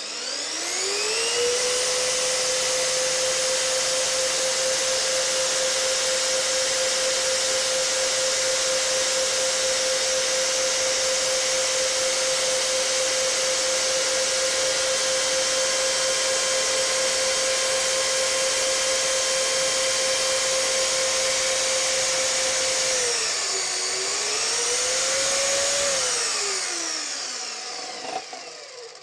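Parkside portable bandsaw spinning up and running steadily with a high motor whine as its blade cuts through a brass threaded tube. Near the end the pitch dips and recovers, then falls away as the saw winds down.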